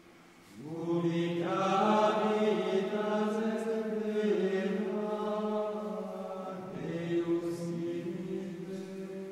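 Men's voices singing Gregorian chant in Latin, held sustained notes that begin about half a second in, with a short pause about six and a half seconds in before the next phrase.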